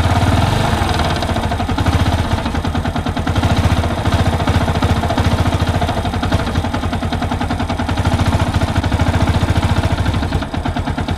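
Yamaha YBR 125's single-cylinder four-stroke engine idling steadily with a fast, even exhaust pulse. The engine is in for a knock, heard mainly on the overrun after a blip of the throttle.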